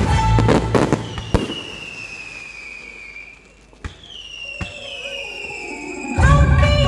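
Fireworks going off during a pyromusical display: a few sharp bangs over music that drops away after about a second, with two slow falling tones in the lull. The music comes back loudly near the end.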